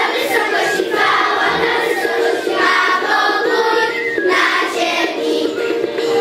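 Group of children singing together over steady instrumental backing music.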